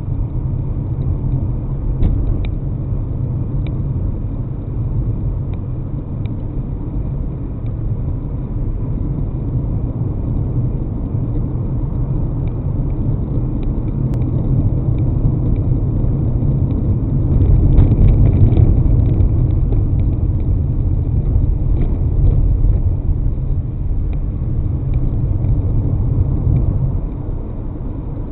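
Car driving on city streets: a steady low road and engine rumble that swells about two-thirds of the way through and eases shortly before the end.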